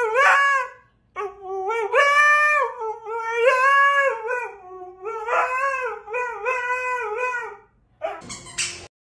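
A dog howling in a run of drawn-out, wavering howls that rise and fall in pitch, then a short noisy burst about eight seconds in.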